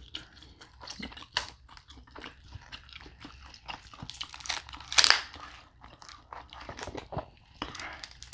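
Cooked lobster tail shell crackling and clicking as fingers pry and pull the meat out of it, with a louder crunch about five seconds in.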